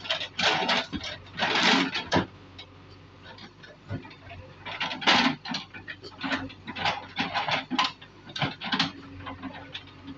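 A JCB backhoe loader working in brick demolition rubble: short knocks and clatter of bricks as the bucket moves the debris, over the faint steady hum of the engine, with people talking nearby.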